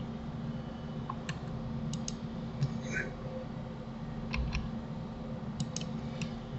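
Sparse clicks of a computer mouse and keyboard, about ten scattered single clicks, over a steady low hum.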